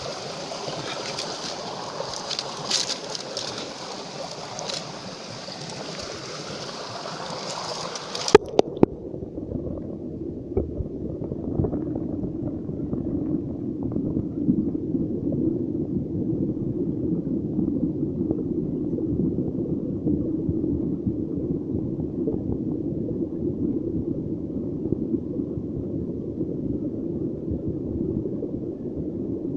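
Water rushing and gurgling with a few clicks; about eight seconds in, after a cluster of sharp knocks, it turns abruptly to a muffled low rumble with all the high sound gone.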